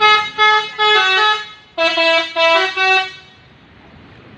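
Telolet musical horn on a Haryanto bus playing a quick tune of short notes in two runs, with a brief break about one and a half seconds in. The horn stops about three seconds in, leaving a low steady background noise.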